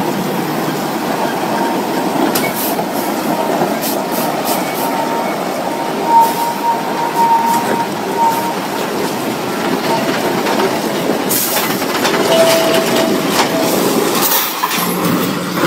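Heavy-haul trucks and a multi-axle trailer straining to move a crawler crane over rough ground: a dense mechanical rumble with a thin squeal of metal. The squeal sits high through the first half and lower later on, with scattered clanks and knocks that grow busier near the end.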